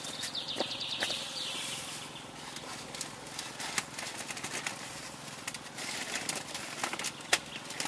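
Scattered sharp clicks and crackles over a steady rustling, with a bird chirping a short trill in the first two seconds.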